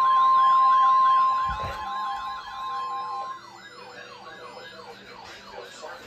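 Several weather alert radios sounding a severe thunderstorm warning at once: a loud steady alert tone cuts off about three seconds in, over warbling siren-like alarms that repeat about three times a second and carry on more quietly.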